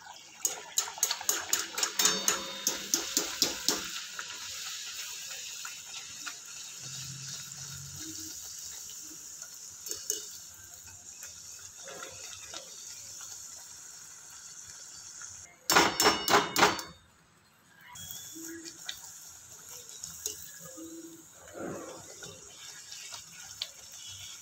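Puri deep-frying in hot oil in a kadhai: a steady sizzle, with rapid metallic clinks of a wire strainer against the pan over the first few seconds and a loud burst of clinking about 16 seconds in.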